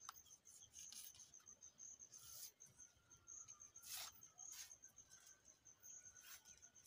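Faint steady high-pitched insect trill, finely pulsing, with a few short soft scratchy rasps as a fibrous sisal leaf is torn into strips by hand. The loudest rasp comes about four seconds in.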